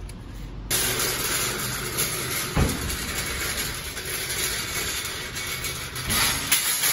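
Empty wire shopping trolley rattling steadily as it is pushed over rough car-park asphalt. There is a thump about two and a half seconds in and a louder clatter near the end as it runs into the row of parked trolleys.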